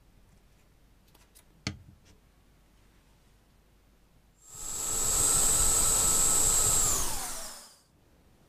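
Lego electric motors spinning propellers in a burst of about three seconds: a steady high whine over rushing air noise, which then winds down with falling pitch as the motors stop. A few small clicks come before it, the sharpest about a second and a half in.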